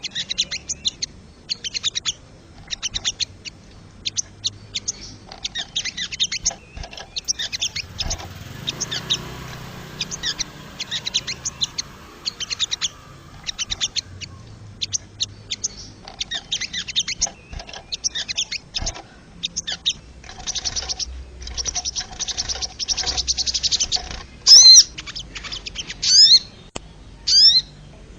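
Sogon (crested jayshrike) calling: repeated bursts of rapid, dry ticking notes, with three loud, sharp calls in the last few seconds.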